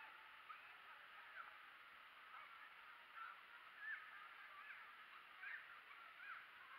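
Faint bird calls: many short chirping calls, rising and falling, scattered over a low steady hiss.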